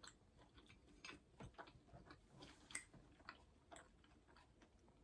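Near silence with faint, irregular mouth clicks of someone chewing food.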